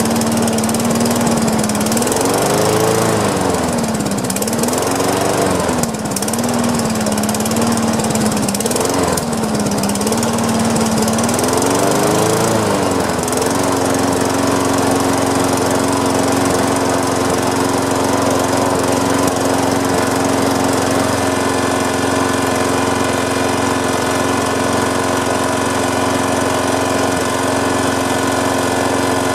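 Toro Recycler push mower's Tecumseh engine running, its speed surging up and down several times while the carburetor is adjusted, then settling to a steady, slightly faster speed about halfway through.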